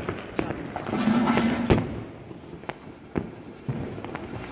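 Diwali firecrackers going off: scattered sharp pops and cracks, several of them spread irregularly through a background of noise.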